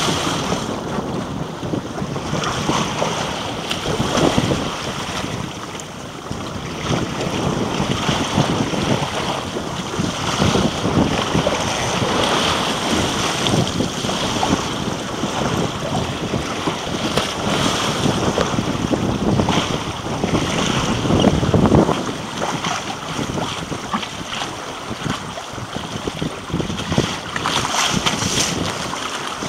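Water rushing and splashing against the hull of a Windrider 16 trimaran under sail, with wind buffeting the microphone in uneven surges.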